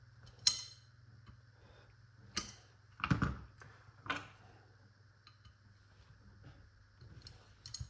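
Scattered sharp clicks and a knock as the detached barrels of a Baikal side-by-side shotgun are handled on a workbench mat. The loudest is a short cluster with a low knock a little after three seconds in, and a low steady hum runs underneath.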